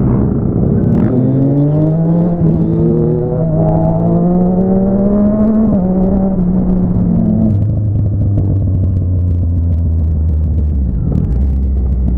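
Motorcycle engine heard from the bike carrying the camera, accelerating with its pitch rising steadily for several seconds, then dropping about halfway through to a lower, steadier note as it cruises.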